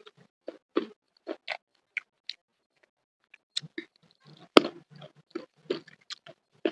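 Close-miked chewing of a mouthful of food: irregular wet smacks and clicks of the mouth and lips, with one sharper smack about four and a half seconds in.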